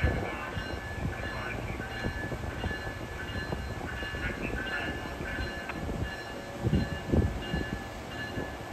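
Amtrak passenger train's Amfleet coaches rolling slowly along the rails, wheels rumbling and knocking, with faint high squeals coming and going. A couple of stronger low thumps come about seven seconds in.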